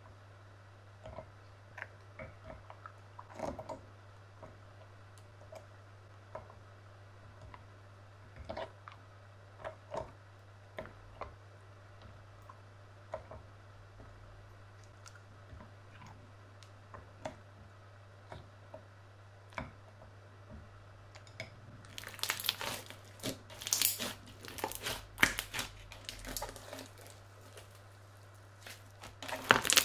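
Slime being stirred with a plastic spatula in a glass bowl: soft, sticky clicks and pops. About 22 seconds in, it gives way to much louder, dense crackling and popping as the crunchy, bead-filled slime is worked, and this returns near the end.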